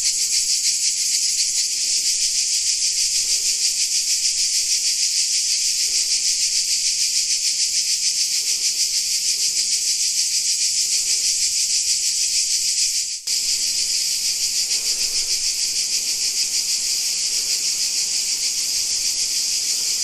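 Cicadas chorusing: a loud, shrill, continuous buzz with a fast, even pulse. It breaks off for a split second about thirteen seconds in.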